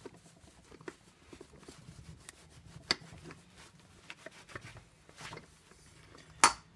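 A cloth rubbing polish onto a chrome bicycle seat post, with faint rustling and small clicks. Near the end there is one sharp knock, the loudest sound.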